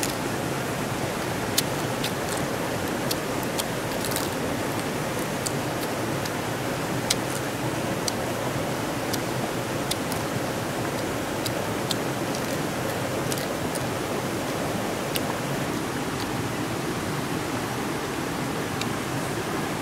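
Steady rush of a river, with scattered short sharp clicks as cooked crab shell is picked apart and eaten by hand.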